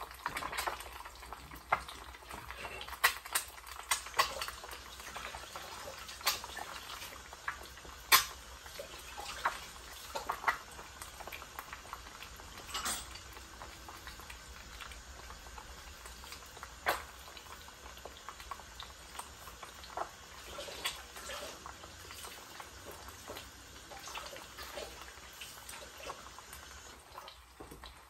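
Eggs frying on low heat in bacon fat in a pan under a glass lid: a soft, steady sizzle with irregular sharp crackles and pops, thinning out toward the end.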